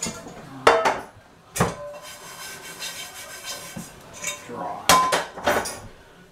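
Dishes and cutlery clattering off to the side: a few separate sharp clinks and knocks, the loudest about a second in and again near the five-second mark, one of them ringing briefly.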